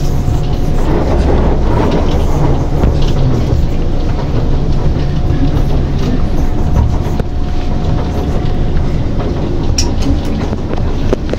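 SMRT C151 train heard from inside the carriage as it pulls out of a station and gathers speed: a steady rumble of wheels on the track, with a faint steady whine over it. A brief high click near the end.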